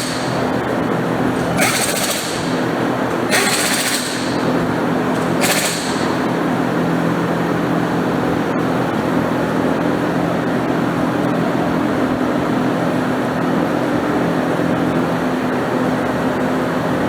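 Air compressor motor running steadily, with four short hisses of air or spray in the first six seconds.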